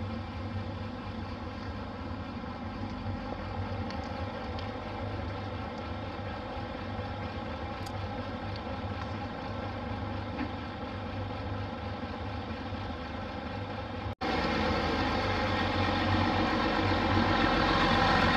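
Nissan Diesel city bus's diesel engine idling steadily. About fourteen seconds in the sound drops out for an instant, then comes back louder and swells near the end.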